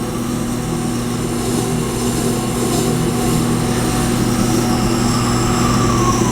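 Tormek T-8 wet grinder's motor running with a steady hum while a Leatherman blade's heel is pressed against the turning grinding stone, giving a continuous scraping hiss of steel on stone that grows slightly louder.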